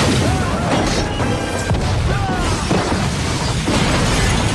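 Film sound effect of a house exploding into a fireball: a big boom that carries on as a long, steady rumble, mixed with dramatic film score.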